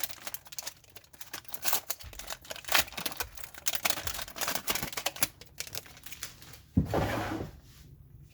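Plastic wrapper of a 1991-92 SkyBox basketball card pack crinkling as it is torn open: a run of fast, irregular crackles, with a louder rustle about seven seconds in.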